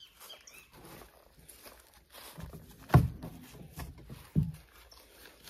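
Rustling and knocks as seedlings in soil-filled plastic bags are handled and set down in a plastic wheelbarrow, with two louder knocks about three and four and a half seconds in.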